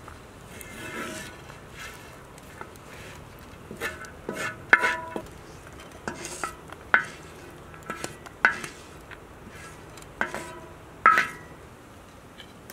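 Spatula scraping across a sadj (iron griddle) and striking it, with a run of sharp ringing metal clinks every second or two in the second half.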